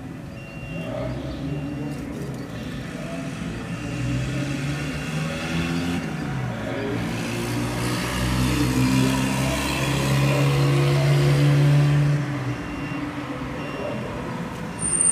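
A motor vehicle engine running close by. Its pitch rises about six seconds in and it grows louder, then it drops away sharply about twelve seconds in.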